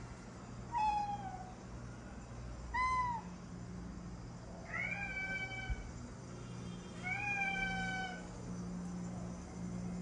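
Domestic cat meowing four times: two short meows in the first few seconds, then two longer, drawn-out meows of about a second each. A steady low hum runs underneath.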